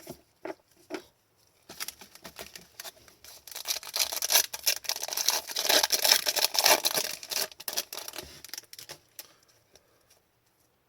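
Hockey trading cards and their pack being handled: a dense rustling and crinkling of paper and card that starts a couple of seconds in, is loudest in the middle, and stops about two seconds before the end.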